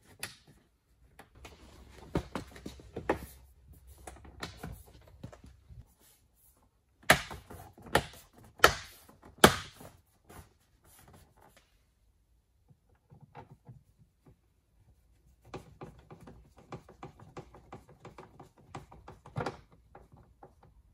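Peugeot 407 front door card being pressed and knocked onto the door, its plastic trim clips snapping into place: a run of sharp clicks and knocks, with four loud knocks under a second apart near the middle and a quicker patter of smaller clicks near the end.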